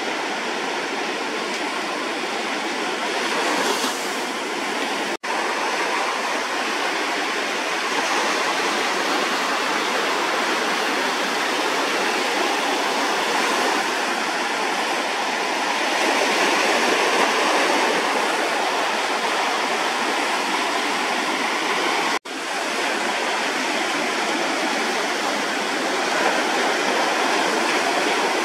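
Ocean surf breaking and washing toward shore, a steady rushing hiss of waves and whitewater. It cuts out for an instant twice, about five seconds in and about twenty-two seconds in.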